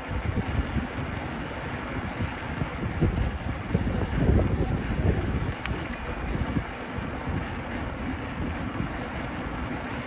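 Wind buffeting the microphone of a camera on a moving bicycle: a gusty low rumble that swells about four seconds in.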